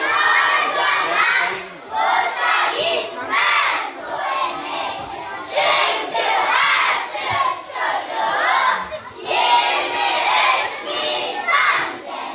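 A group of children's voices together, chanting or shouting in chorus, in phrases of one to two seconds with short breaks between.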